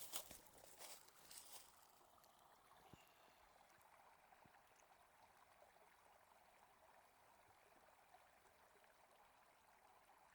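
Faint, steady babble of a small creek, with a few crunches in the first two seconds.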